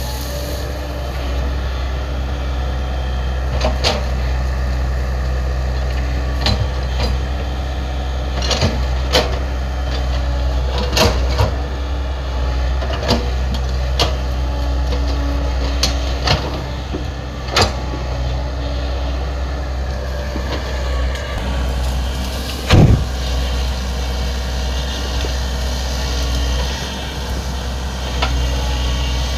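Excavator engine running steadily under load, with scattered sharp cracks and knocks as it clears brush, and one loud thump about three-quarters of the way through.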